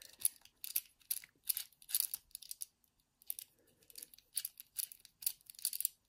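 Light, irregular metallic clicks and scrapes of a small hand tool working inside a Ruko rim cylinder lock as it is taken apart.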